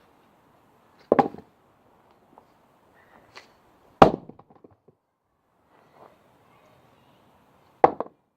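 Three axe blows into a very hard beech log, about three seconds apart, each a sharp crack; the second is the loudest.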